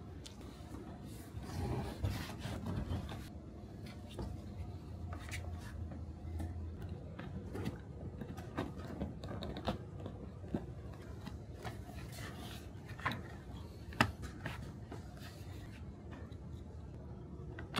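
Hands working on car-seat upholstery: material rustling and rubbing, with scattered clicks and knocks, the sharpest about three-quarters of the way through.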